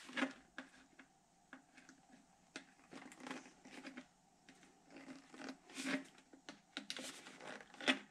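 Needle-nose pliers crimping the end of a thin sheet-metal stove pipe, making irregular clicks and crinkles of bending metal in short runs with pauses between. The pipe end is being narrowed so it will slide into the next section.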